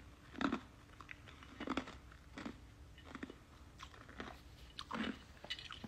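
A few faint, short crunching or clicking noises close to the microphone, irregular and roughly a second apart, over a faint steady hum.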